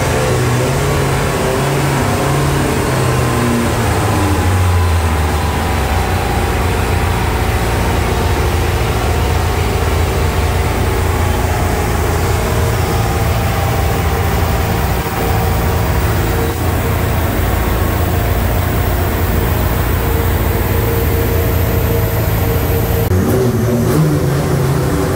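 Turbocharged Mitsubishi Lancer race engine, tuned to well over 1000 hp, running steadily on a chassis dyno. Near the end the engine note dips and then rises again.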